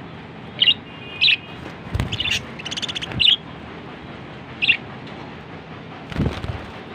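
Pet budgerigars chirping: a handful of short sharp chirps, with a quick rattling chatter of notes about three seconds in. Two low thumps, one about two seconds in and one near the end.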